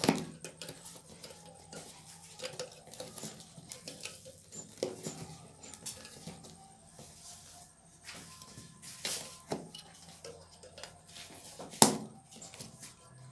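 Bicycle tyre being worked onto a spoked wheel rim by hand, with rubbing and scattered light clicks and knocks as the bead is pushed over the rim edge. A single sharp knock comes near the end.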